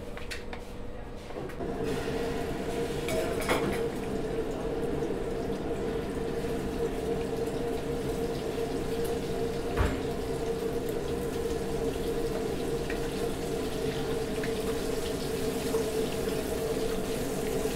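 Egg-coated shrimp frying in hot oil in a pan, a steady sizzle that rises about two seconds in and holds, with a steady hum alongside. Two sharp knocks, likely a utensil against the pan, come a few seconds in and about halfway through.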